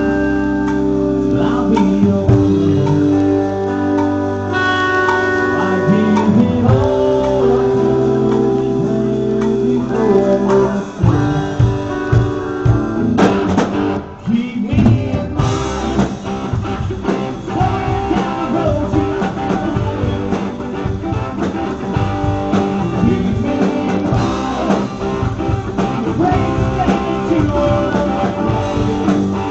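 Live rock band playing: guitars over bass and drums, with some singing. The deep bass thins out about eleven seconds in, with a short break near fourteen seconds before the band carries on.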